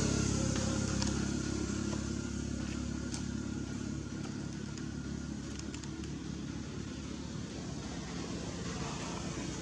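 A motor vehicle engine running with a low drone that fades over the first few seconds as it moves away, then continues as a steady hum. A few faint ticks are heard in the middle.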